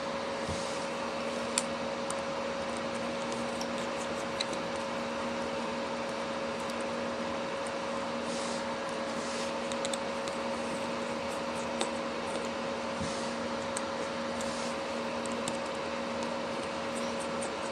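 Steady electrical hum and hiss, with a few small sharp clicks of a small tool working on the phone's internal parts.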